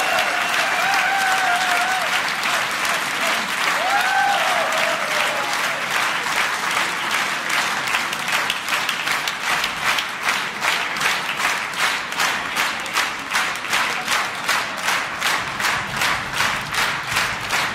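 A large audience applauding, with a voice whooping about four seconds in. About halfway through, the applause falls into rhythmic clapping in unison on a steady beat.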